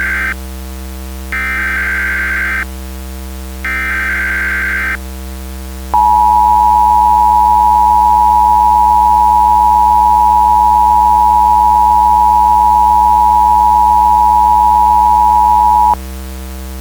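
Emergency Alert System tones. First come the last of the SAME header data bursts, each about 1.3 s long with short gaps between them. About six seconds in, the louder, steady two-tone EAS attention signal starts; it holds for about ten seconds and then cuts off. A constant low hum runs underneath.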